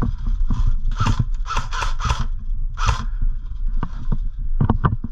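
Footsteps thudding on a wooden plank floor, with a run of short hissing rustles in the middle.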